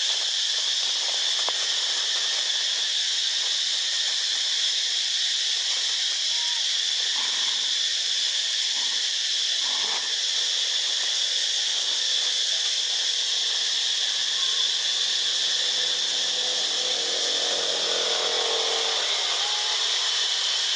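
Steady, high-pitched insect drone filling the air, with a few faint short calls in the middle and a faint low drawn-out tone near the end.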